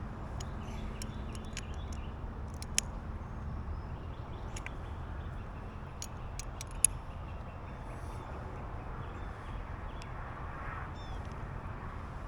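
Scattered small metallic clicks and ticks of hand tools working on the nut of a trailer leveling valve's arm, over a steady low background rumble.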